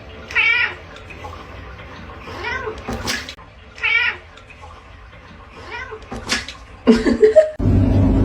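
A domestic cat yowling: a series of drawn-out, wavering calls a second or two apart. A few sharp, loud sounds come near the end.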